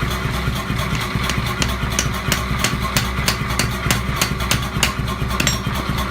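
Rapid, sharp metal taps, several a second and unevenly spaced, over the steady hum of a motor.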